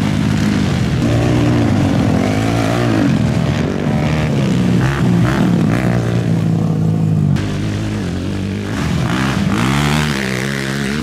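Several ATV engines racing at once, each revving up and falling back, their pitches rising and dipping and overlapping. It gets a little quieter about seven seconds in.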